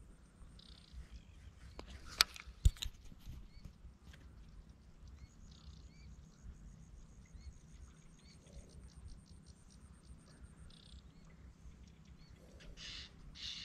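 Faint outdoor marsh ambience with small birds chirping briefly and a high, rapid trill, broken by two sharp clicks about two seconds in and a louder rasping burst near the end.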